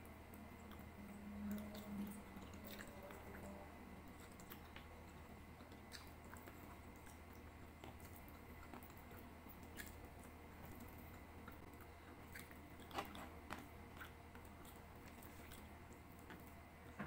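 Quiet close-miked chewing of chicken adobo and rice: soft wet mouth clicks and smacks scattered throughout, with a short low hum about two seconds in and a sharper cluster of clicks a few seconds before the end.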